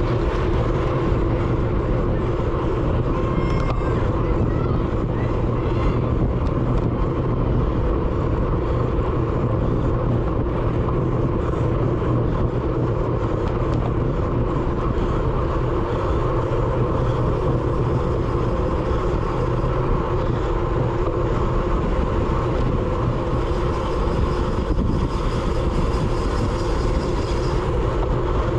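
Steady wind rush buffeting the microphone of a GoPro mounted on a road bike at race speed in a criterium, with rolling tyre noise underneath.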